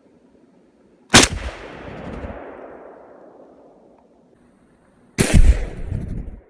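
A TG2 rifle shot goes off about a second in and rings out in a long, fading echo. About four seconds later comes a second, longer and deeper blast that cuts off abruptly.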